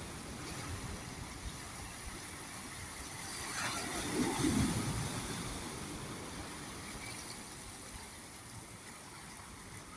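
Sea waves washing in, one wave swelling up about four seconds in and then slowly fading away.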